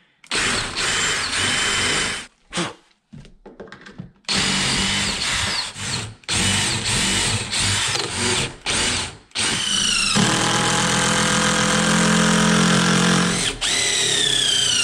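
Cordless power drill boring quarter-inch pilot holes through wooden shims into the ladder frame and joist in several short stop-start bursts, its motor whine falling each time it stops. Over the last few seconds an impact driver runs a lag screw in with a longer, steady run.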